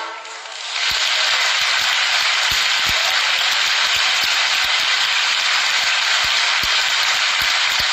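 The orchestra's last held note dies away, and just under a second in an audience breaks into steady, loud applause.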